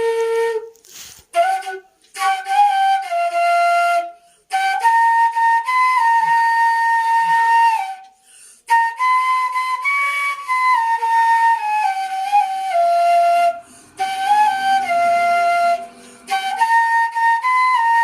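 Background music: a solo flute playing a slow melody in held, stepping notes, phrase by phrase with short breaks between.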